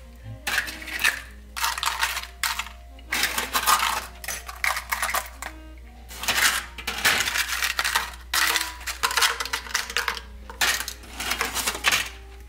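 A metal utensil scraping and knocking against a frying pan in repeated strokes, roughly one a second, as stir-fried pho noodle sheets are worked and scooped out.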